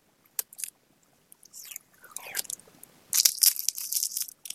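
Old adhesive tape being pulled and scraped out of an opened Huawei P8's battery bay: a few scattered clicks, a short sliding squeak, then a dense spell of crackling starting about three seconds in.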